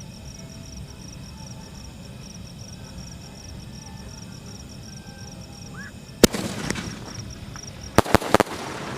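Anil V4 sky shot aerial firework going off with four sharp bangs: one about six seconds in, then three in quick succession near the end. Crickets chirp steadily underneath.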